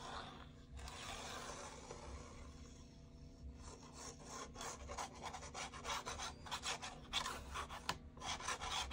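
Scratchy rubbing and rasping of kraft cardstock being handled while a glue bottle's tip is drawn along its edge, in irregular strokes that come thicker and faster after about four seconds.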